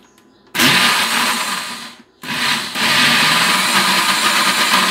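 Countertop electric blender beating a liquid cake batter of eggs, oil and sugar: it is switched on about half a second in, stops briefly around two seconds in, then runs again.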